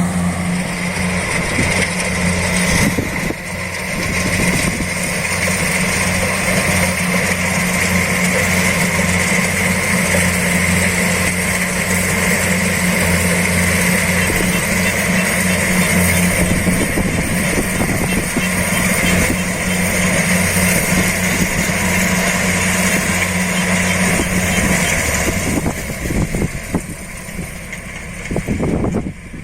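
Rice combine harvester running steadily, engine and machinery together with a high steady whine above the engine note. About 25 seconds in the low engine note stops and the sound becomes quieter and uneven.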